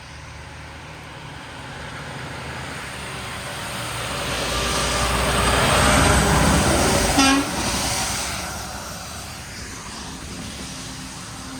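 A truck passes by, its road and engine noise swelling to a peak and fading away, with one short horn toot about seven seconds in.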